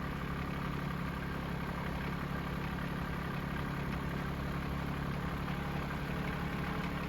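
Tractor engine running steadily at low, even speed, pulling a water-wheel tomato transplanter.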